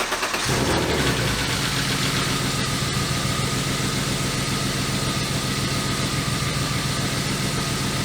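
BMW E36 325i inline-six catching about half a second in from a start, then idling steadily. The misfire on cylinder 1 is still there: the new camshaft position sensor has not cured it.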